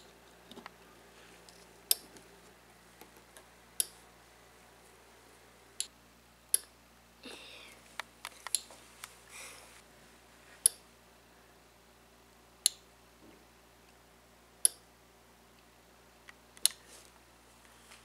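Small blue relay on a breadboard clicking sharply about every two seconds as an Arduino switches it on and off, showing that the test circuit works. A few soft rustles come in around the middle.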